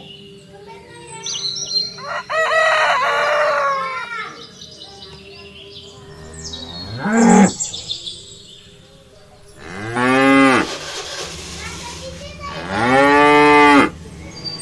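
Cattle mooing: two long, low moos in the second half, after a couple of shorter, higher calls. Birds chirp faintly in the background.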